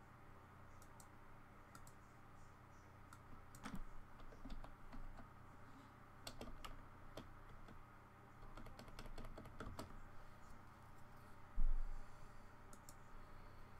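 Faint, scattered computer keyboard keystrokes and mouse clicks, in short clusters, over a steady low hum. A single low thump comes near the end.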